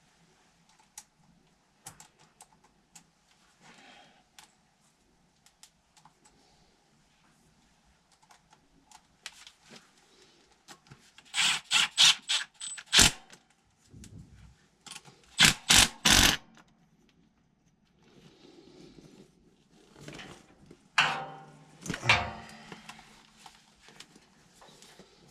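Hand work on metal HVAC parts: scattered light clicks and knocks, then three clusters of loud, quick scraping strokes.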